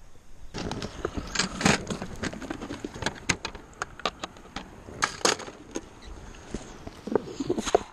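Irregular crunching and sharp clicking knocks, like footsteps on river gravel and stones, with a dozen or so loud clicks scattered through.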